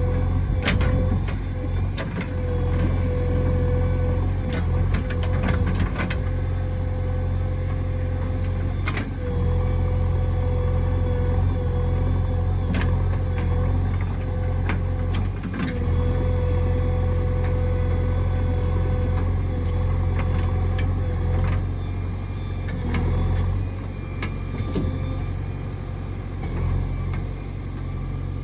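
JCB 3DX backhoe loader's diesel engine running steadily under work, with a whine that cuts out and comes back every few seconds and scattered clanks and knocks.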